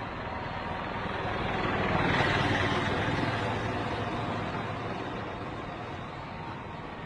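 A vehicle driving past: a rushing noise swells to a peak a couple of seconds in and then fades away.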